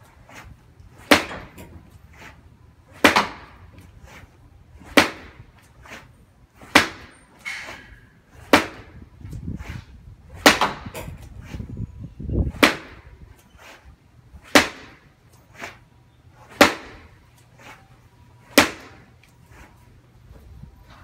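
Karate punches landing on a makiwara, a wooden striking post with a rope-wrapped pad: about ten sharp smacks roughly two seconds apart, with fainter knocks between them.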